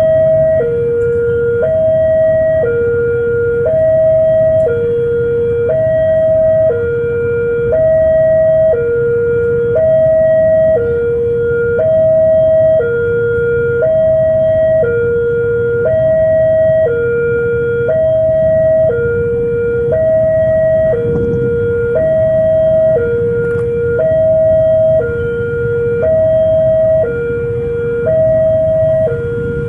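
Railway level-crossing warning alarm: an electronic two-tone signal alternating evenly between a higher and a lower tone, each held about a second, over a low background rumble.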